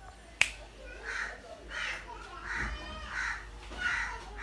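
A sharp click about half a second in, then a crow cawing five times at an even pace.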